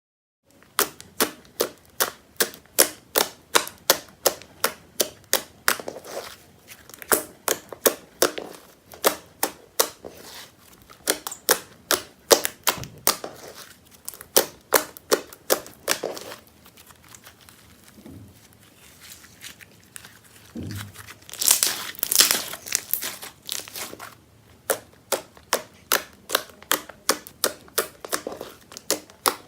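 Clear-glue glitter slime being worked just after the activator is added, giving a steady run of sticky clicks and pops about two or three a second. About two-thirds of the way through it breaks into a louder, denser crackle.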